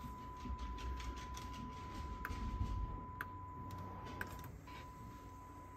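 A steady 1 kHz test tone used for recording-level calibration on an Akai GX-9 cassette deck, breaking off briefly about four and a half seconds in. A few light clicks of the deck's front-panel buttons being pressed.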